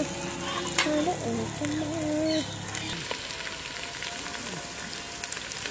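Country chicken pieces sizzling and crackling in hot oil in a large aluminium pot.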